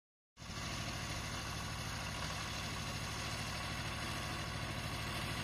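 Vehicle engine running steadily, cutting in abruptly just after the start.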